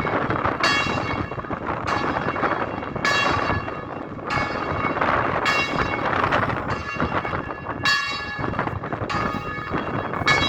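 Bells ringing, about one ringing strike a second, each note hanging on into the next, over steady wind noise.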